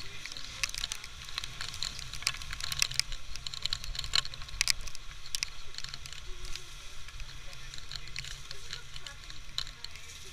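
Wind and rain crackling against the camera on the bow of a moving water taxi in choppy water, full of sharp ticks, over a low steady rumble.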